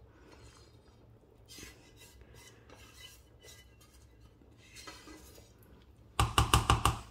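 Silicone spatula scraping fried masala paste off a frying pan into a pot of boiling dal, with soft scrapes and taps. About six seconds in, a quick run of about eight loud, ringing knocks of metal cookware against the pot's steel rim as the last of the masala is knocked off.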